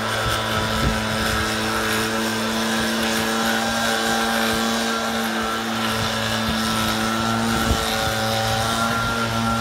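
Backpack leaf blower's small engine running at a steady speed, with the rush of air from the blower tube.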